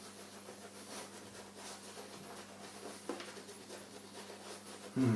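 Faint brushing and rubbing of a silvertip shaving brush working shave cream lather over the face, over a low steady electrical hum.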